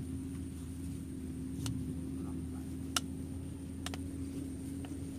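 Steady low motor drone with a constant hum in it, running on unchanged, broken by a few short clicks, the sharpest about three seconds in.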